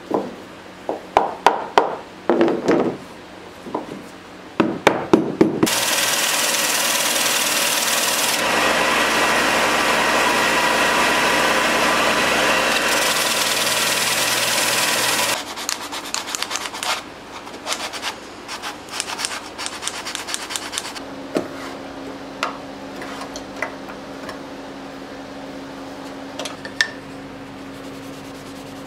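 A small hammer tapping on a small wooden box in two short runs of strikes, then a bench-top belt and disc sander running for about ten seconds with wood held against it, cutting off abruptly. After that come scattered light clicks and rubbing as a rag is worked over wood, over a low steady hum.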